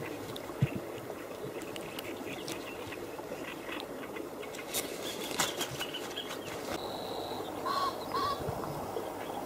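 Soft rustling and small clicks of hands unhooking a small freshly caught fish, over a steady background hiss. A bird calls twice, briefly, near the end.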